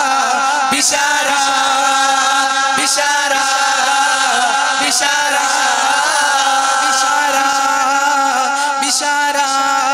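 Group of young male voices singing a Kannada song together through microphones, holding long chant-like notes that waver and bend.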